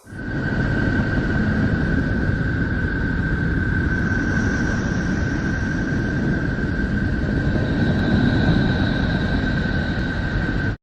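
A steady rumbling drone with a constant high whistling tone over it: a 'planet sound' from a solar-system sound compilation. It fades in at the start and cuts off abruptly at the end.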